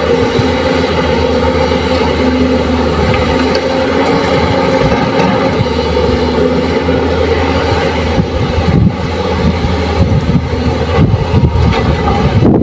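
Crawler excavator diesel engines running steadily under hydraulic load as the machines swing and dig, a low steady drone. It turns rougher and more uneven from about eight seconds in.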